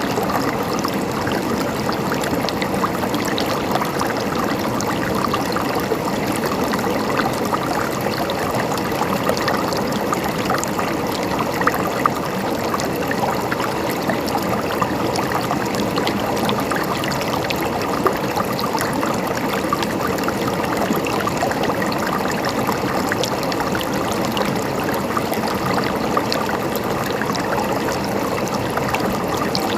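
Shallow river flowing steadily over stones, with a constant rush and many small splashes and gurgles.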